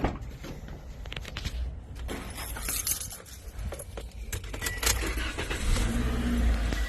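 A bunch of keys jangling, with irregular clicks and rattles of handling, and a short high beep near the end.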